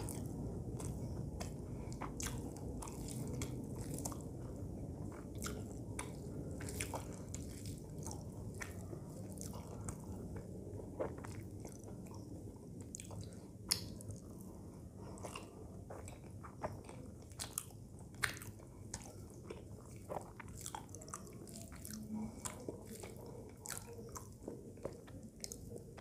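A person chewing mouthfuls of rice and curry eaten by hand, with many small wet mouth clicks and smacks. Fingers mix rice on a metal plate between mouthfuls.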